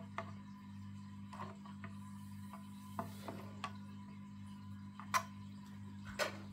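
Small plastic feeding spoon clicking and tapping against a plastic tank's opening as it is dipped and stirred in the water: a handful of scattered sharp clicks, the loudest near the end, over a steady low hum.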